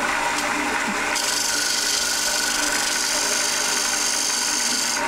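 Wood lathe running while a dovetail scraper cuts a recess into the face of a spinning wooden blank. The cut starts about a second in as a steady hiss over the lathe motor's hum.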